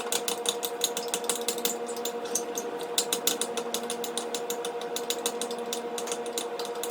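Glue and baking-soda slime being mixed in a bowl: rapid clicking and tapping, about eight clicks a second, over a steady hum.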